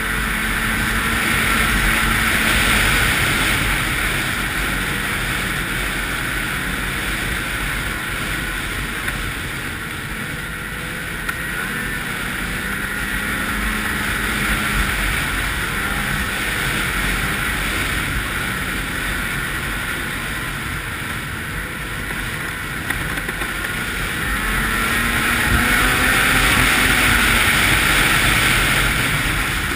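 Ski-Doo 800 snowmobile's two-stroke twin engine running steadily on the trail, with track and running noise, growing louder about two seconds in and again near the end.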